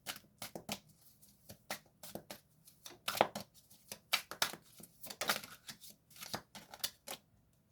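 Tarot cards being shuffled by hand: a run of short, irregular papery riffles and taps.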